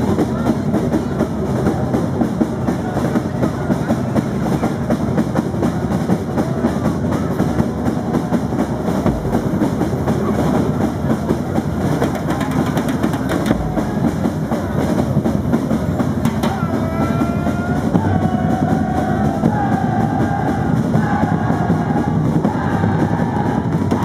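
Street percussion band of snare and bass drums playing a fast, dense rhythm together. About two-thirds of the way through, a melodic line joins in over the drums.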